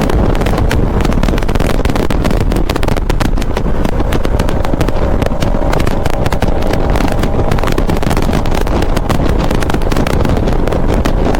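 Motorcycle riding along at speed, its engine running steadily under heavy wind buffeting on the microphone.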